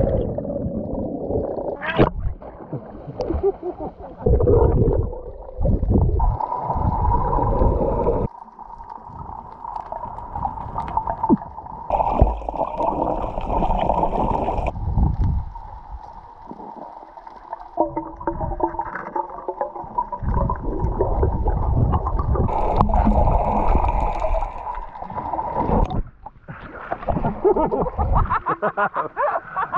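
Underwater sound through an action camera. It opens with a rush of bubbles after a diver goes in, then settles into muffled rumbling and gurgling with a thin steady tone. Near the end come choppy splashing and ticking as the camera breaks the surface.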